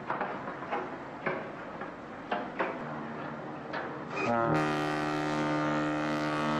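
A run of sharp, irregularly spaced clacks, then about four seconds in a loud, low horn blast held steady for more than two seconds.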